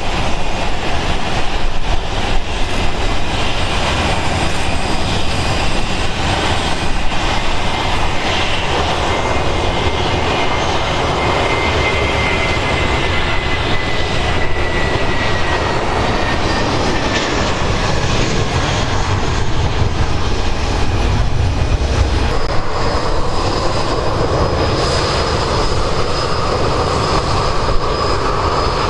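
Boeing 737-800 CFM56 jet engines running with a steady rush. A whine glides down in pitch midway, and higher whines rise near the end.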